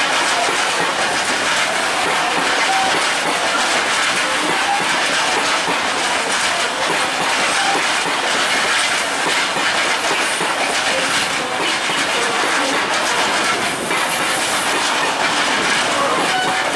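A long freight train of Talbot-type hopper wagons rolls steadily past, its wheels clattering over the rail joints.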